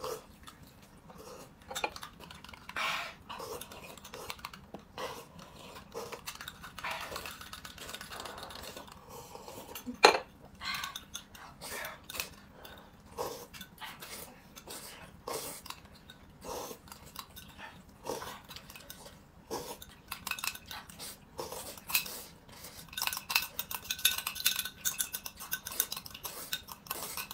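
Eating utensils clicking and clinking against a bowl in quick, irregular taps, with one sharper knock about ten seconds in.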